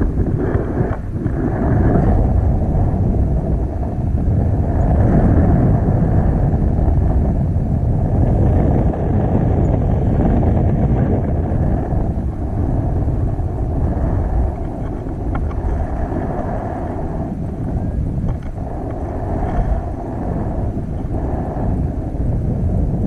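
Airflow buffeting an action camera's microphone during a tandem paraglider flight: a loud, steady rush of wind noise that swells and eases a little.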